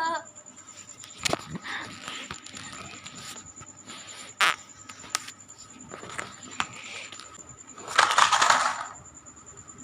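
Handling noise: scattered clicks and knocks with bouts of rustling, and a louder rustle about eight seconds in.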